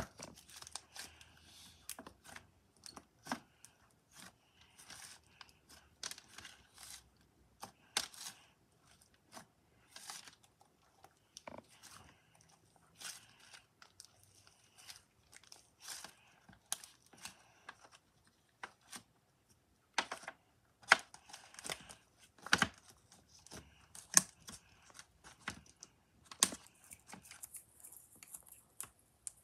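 Thick slime being stretched, folded and squeezed by hand, giving off irregular sticky crackles, pops and tearing sounds. Near the end, fingers poke and press it down into a plastic tub.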